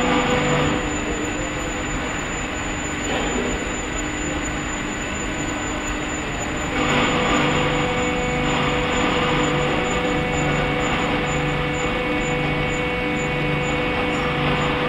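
Coldbox core shooter running: a steady mechanical hum with a low tone pulsing on and off about once a second. It eases off after the first second and gets louder again about seven seconds in.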